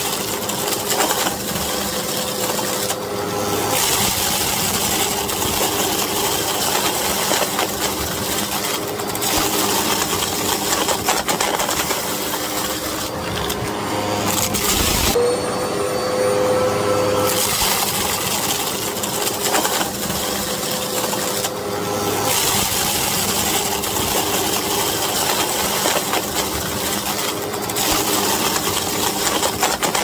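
Hoover WindTunnel upright vacuum running over shag carpet, its motor and fan holding a steady drone. Over it runs a dense crackle of dried peas, corn kernels and seed hulls rattling up into the nozzle. The high hiss of the airflow drops away briefly several times.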